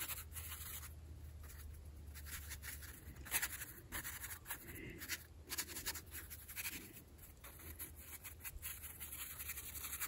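Faint scratching of a round watercolor brush dabbing and stroking paint onto cold-press watercolor paper, in a string of short, irregular strokes.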